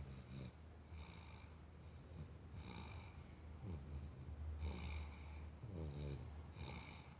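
Snoring: a rough, rattling breath every second or two, some with a hissing, whistling edge.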